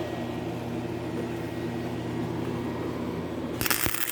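A steady electrical hum, then near the end a loud crackling sizzle of a gasless flux-core wire-feed welding arc lasting about a second: a short tack weld.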